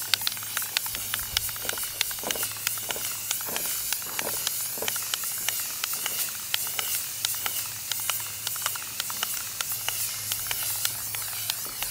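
Aerosol spray paint can spraying: a steady hiss with many small ticks running through it.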